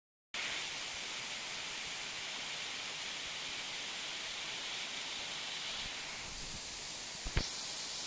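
Waterfall rushing as a steady hiss of falling water, starting a moment in. A short low thump comes near the end.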